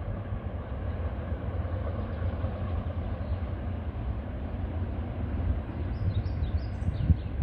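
Wind buffeting the microphone: an uneven low rumble with occasional gusty spikes, and a few faint high chirps near the end.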